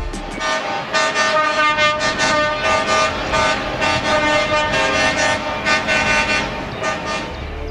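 Vehicle air horn sounding in a run of pulsing blasts, several tones at once.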